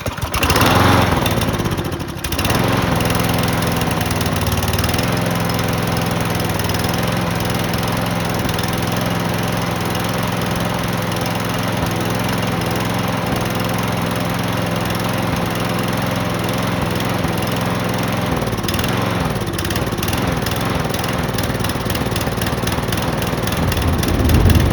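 Briggs & Stratton lawnmower engine started right after priming, catching within the first two seconds and then running steadily on a freshly replaced spark plug. It grows louder briefly near the end.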